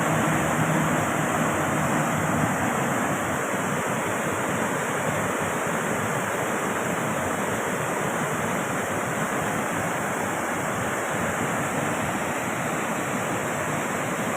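Steady rushing wind and road noise from a moving vehicle, even throughout with no distinct events.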